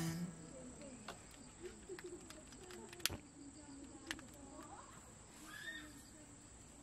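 A few sharp clicks, the loudest about three seconds in, as a long lighter lights a small butane gas lantern. Under them runs a steady high drone of crickets.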